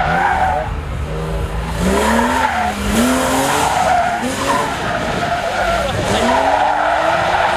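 BMW Z3 coupé's straight-six engine revving hard, its pitch climbing and dropping several times, with tyres squealing and skidding as the car slides through the slalom cones.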